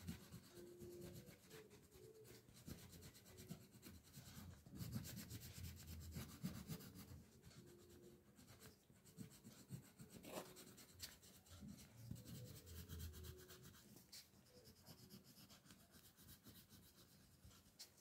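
Faint rubbing of a green crayon on paper as a leaf is coloured in, in short, irregular strokes.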